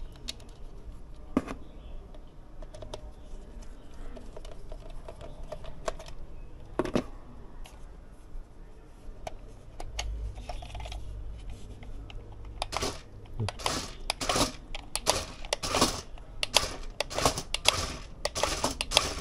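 Toy remote-control car being switched on and test-run by hand. Scattered clicks, then a brief low motor hum about halfway through, then a rapid run of clicking and clattering over the last several seconds.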